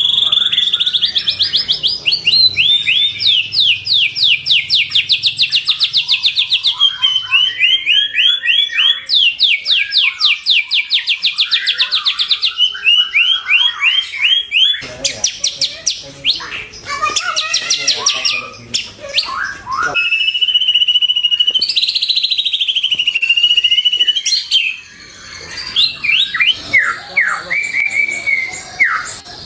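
White-rumped shama (murai batu) singing a long, varied song: fast trills of repeated sweeping notes, many per second, switching to a new phrase every few seconds, with some lower down-slurred whistles near the end.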